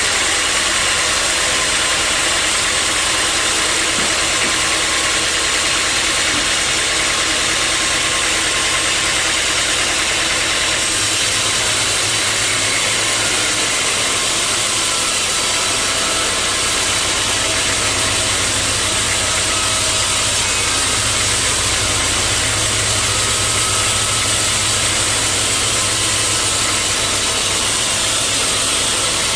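Sawmill machinery running steadily and loud, an engine-like drone with hiss over it. About eleven seconds in, the sound shifts, the highest hiss dropping away and a deeper hum coming up.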